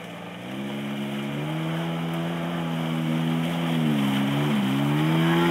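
Small moped and scooter engines running hard through a muddy puddle, growing louder as the riders come closer, with the wheels splashing through the water. The revs drop briefly about four seconds in, then pick up again.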